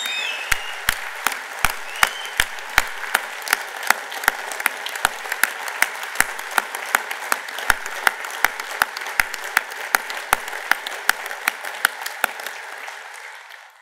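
A large crowd applauding: a dense wash of clapping with one set of sharp, evenly spaced claps standing out close by, a little under three a second. There are a couple of short whistles in the first two seconds, and the applause dies away near the end.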